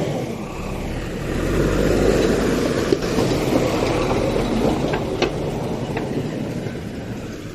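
JCB 3DX backhoe loader's diesel engine running, swelling about a second and a half in and easing toward the end, with three short sharp knocks.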